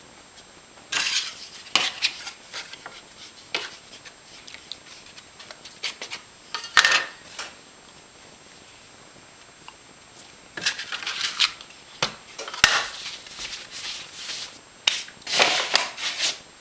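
Bread dough worked by hand across a bare tile countertop, with friction on the tile tightening the loaf's bottom seam: scraping and rubbing in irregular bursts with quiet pauses between them and a few sharp clicks, busiest in the last third.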